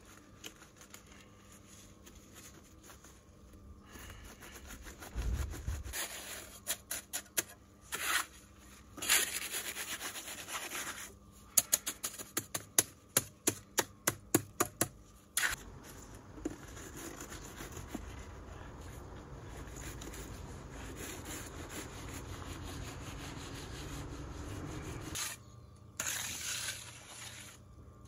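Wet concrete being worked with a hand trowel over steel reinforcing mesh. Scraping strokes, then a run of sharp, quick chops about three a second as the trowel edge works the mix down, then a long steady rubbing as the surface is smoothed flat.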